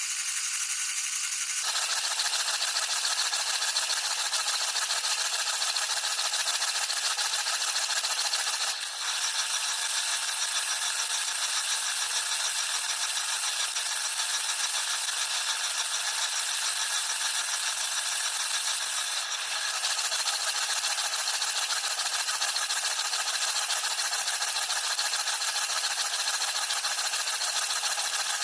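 Water from a running dishwasher's spray arms pelting the camera inside the machine during the wash cycle: a steady hissing spray with a fine rattle. It fills out about two seconds in and dips briefly twice.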